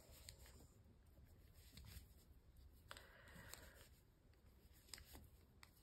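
Near silence, with a few faint clicks and rustles of knitting: 8 mm KnitPro Ginger wooden circular needles and merino yarn being worked by hand.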